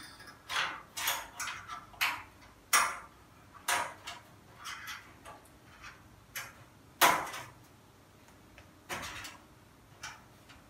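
Fingers pressing a new LED backlight strip into place on the sheet-metal backlight tray of a Samsung 60-inch LED TV: a string of irregular clicks and taps, the loudest about seven seconds in.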